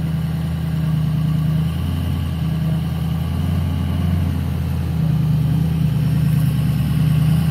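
An engine idling with a steady low hum, typical of a tow vehicle waiting on a boat ramp while boats are pulled out.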